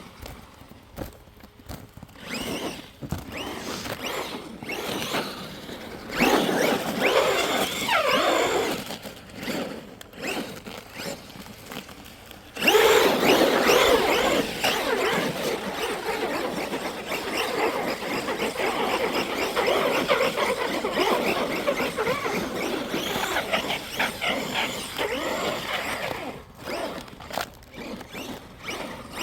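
Electric RC monster truck motor whining in quick rising and falling sweeps as it is driven hard in snow. It comes in about six seconds in and gets louder and busier from about halfway on.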